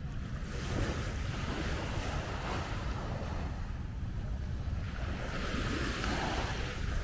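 Wind rumbling on the microphone, with two long swells of rushing noise, about half a second in and again about five seconds in.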